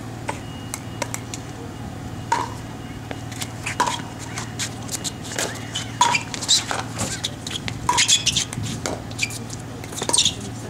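Pickleball paddles hitting a hard plastic ball in a doubles rally: a sharp pop every second or two, among fainter clicks, over a steady low hum.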